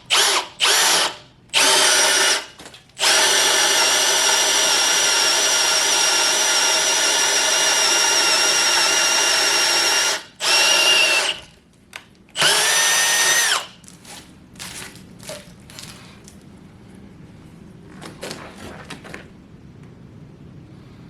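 Power drill boring with an auger bit into a wooden 6x6 timber, drilling out a notch for an angle brace. It starts with a few short trigger pulses, then runs steadily for about seven seconds, then makes two shorter runs. After that there are only faint knocks.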